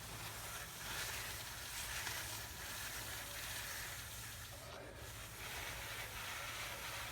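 A rag wiping the freshly sanded surface of a brake rotor, a soft rubbing hiss that swells and eases with each stroke.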